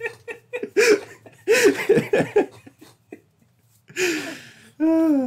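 Laughter in quick voiced bursts for the first two and a half seconds, then a pause. A breathy exhale comes about four seconds in, and a short voiced sound near the end.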